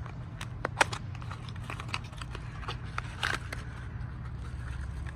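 A small cardboard motor box opened by hand and a bubble-wrapped brushless motor drawn out: scattered clicks, crinkles and rustles, the sharpest about a second in, over a steady low rumble.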